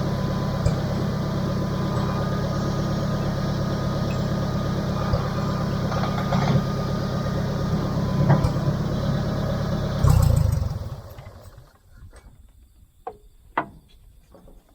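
Engine idling steadily, then shut off about eleven seconds in and running down to a stop. A few sharp clicks and knocks follow.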